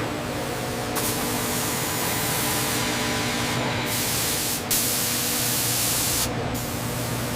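Factory machinery: a steady hiss like spraying air or fluid over a low, steady machine hum, the hiss changing abruptly a few times.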